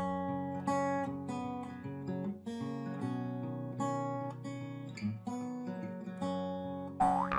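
Acoustic guitar music, notes picked one after another at an easy pace. Near the end a louder cartoon sound effect with a sliding pitch cuts in.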